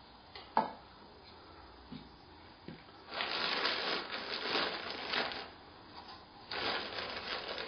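Plastic bag of Jesmonite powder crinkling as it is handled and opened inside its tub, in two spells of a couple of seconds each. A single sharp click comes about half a second in.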